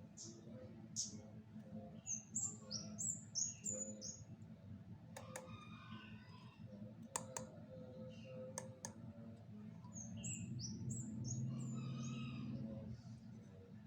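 A bird chirping in the background: two runs of quick, high, falling notes, with a few sharp clicks around the middle over a steady low hum.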